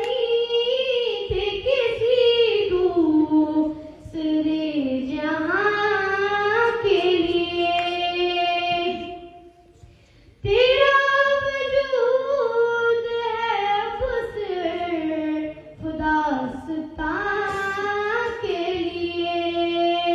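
A high solo voice singing a naat without instruments, in long held phrases that slide between notes. There is a short breath pause about ten seconds in.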